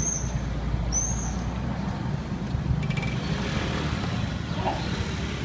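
Street traffic noise: a steady low engine rumble with vehicles passing by, and two short high chirps near the start.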